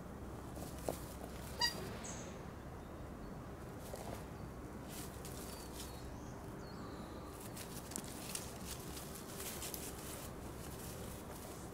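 Shiba puppy's paws and toys rustling in dry grass as it plays, with faint scattered rustles and clicks. One short high-pitched squeak comes about a second and a half in, and a few faint chirps follow.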